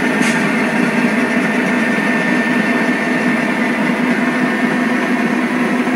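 Model railroad freight train running past at steady speed: an even mechanical running sound with a constant high whine.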